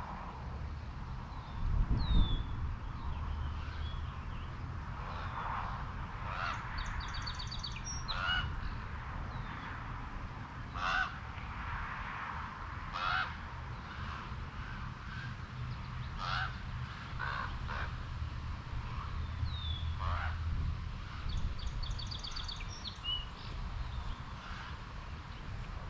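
Birds calling outdoors: a series of short, loud calls every second or two, a quick rattling trill twice and a few small chirps, over a steady low rumble.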